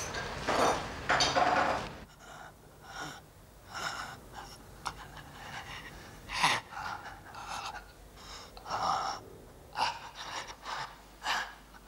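A badly burned man gasping for breath: short, irregular gasps and breaths about once a second, strongest in the first two seconds.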